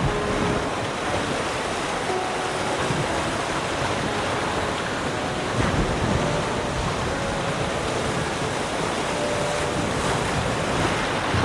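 Ocean surf washing in steadily, with some wind.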